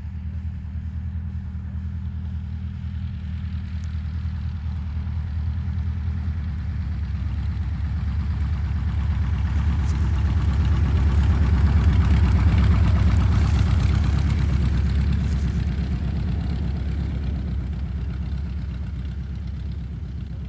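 Rans S21 single-engine propeller plane passing over the grass strip: a steady engine drone that swells to its loudest about twelve seconds in, then fades as it moves away.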